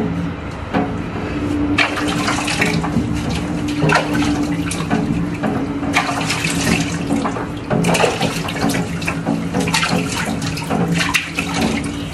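Water running from a faucet hose and splashing as a wet dog is rinsed and scrubbed in a concrete sink, the splashing coming and going in irregular bursts from about two seconds in. A steady low hum runs underneath.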